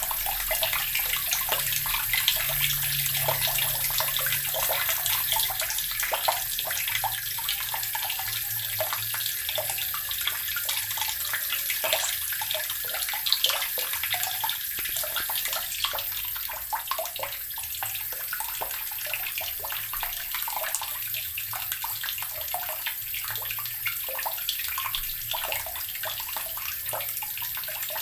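Water tap running steadily into a basin or tub, a continuous splashing hiss with small spatters.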